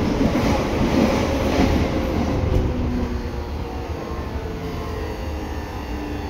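Seibu 6000 series electric train with Hitachi GTO-VVVF traction equipment running, heard inside the car near the line breaker. Steady rolling and motor noise carries faint steady inverter tones, and the noise eases about two and a half seconds in.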